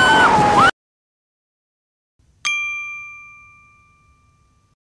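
Roller coaster riders screaming, cut off abruptly into silence; about two and a half seconds in, a single bright chime strikes and rings away over about two seconds, the sting of a channel intro logo.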